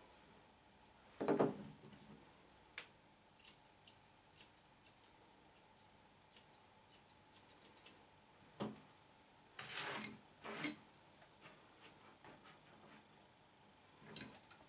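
Grooming scissors snipping a poodle's coat: a run of short, sharp, quick snips, with a few louder rustles of handling between them.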